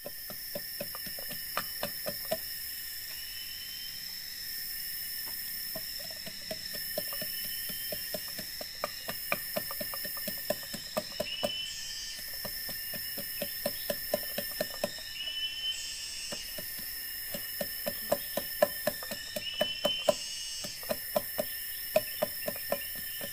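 A wooden stick pounding inside an upright bamboo tube used as a mortar: a long run of quick repeated knocks, several each second, over a steady chorus of forest insects.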